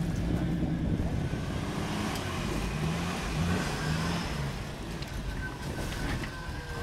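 Jeep engine running steadily at low revs as the vehicle crawls up rock ledges.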